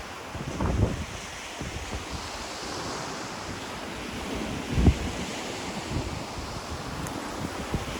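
Ocean waves washing on a shore, a steady hiss that swells and eases, with wind buffeting the microphone in low thumps, the strongest a little before five seconds in.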